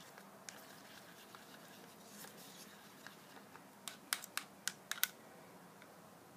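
Wooden stick stirring casting resin in a clear plastic cup: faint scraping, then a quick run of sharp clicks of the stick against the cup about four seconds in.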